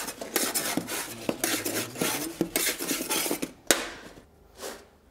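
Baked Scotch pies being lifted and slid across a baking tray, with a knife blade scraping under them: a run of short scrapes and clatters, the pies being checked on the bottom to see they are cooked. A sharp clack about three and a half seconds in is the loudest sound, and it goes much quieter after it.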